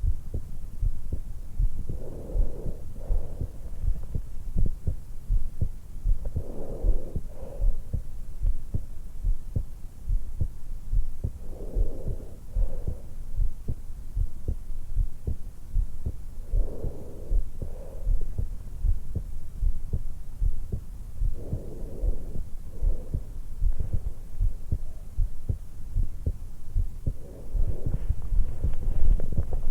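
A young woman's heartbeat and breathing, picked up by a stethoscope microphone pressed into the hollow at the base of the throat while she rests lying on her back just after waking. Steady low lub-dub beats run throughout, with a breath drawn in and let out about every five seconds.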